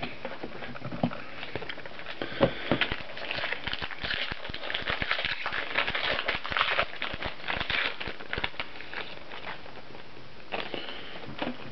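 Trading cards and their packaging being handled: a run of small crackles, clicks and rustles, busiest in the middle.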